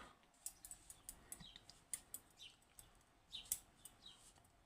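Scattered light clicks and taps of small parts being handled while a Western Electric 30B lever lock is dismantled, with a bird giving short falling chirps about once a second behind them.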